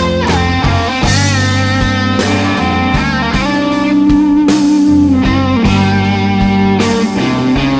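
Live blues-rock band playing an instrumental passage: an electric guitar lead with bending, sliding notes over bass and drums.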